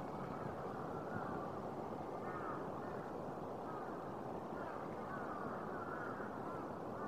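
Crows cawing now and then, short calls repeating every second or so, over steady low background noise.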